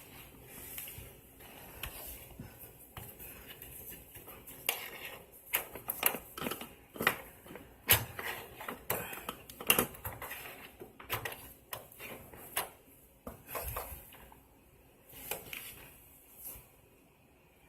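Irregular clicks and light knocks of small plastic and metal parts being handled, as a refrigerator compressor's start relay is lined up and pushed onto its terminal prongs. The clicks come thickest and loudest through the middle.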